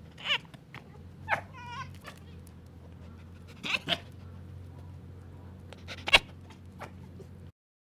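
Red fox giving short, sharp calls in several separate bursts, one of them wavering up and down about one and a half seconds in, over a low steady hum.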